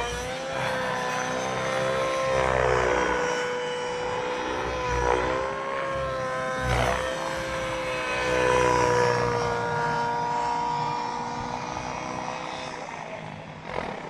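RC helicopter in flight, its engine and rotor making a steady whine whose pitch wavers slightly as it flies. About a second before the end the whine drops away. This is a loss of power that the pilot suspects comes from a failed RPM governor sensor.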